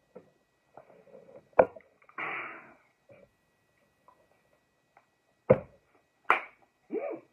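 A man drinking, with sharp knocks from the small bottle and glass being handled and a short breathy exhale after a swallow.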